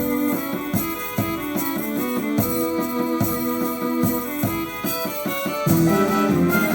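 Background music: pitched instruments playing over a steady percussive beat.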